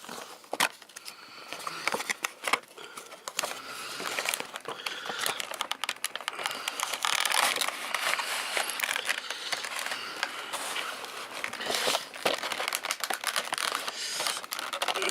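Model train packaging being opened and handled: a dense run of crinkling, scraping and clicking as the box and its wrapping are pulled apart.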